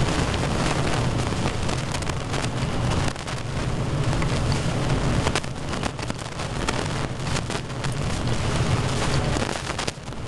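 Rain falling steadily during a thunderstorm, with many sharp close drop hits over a steady low rumble.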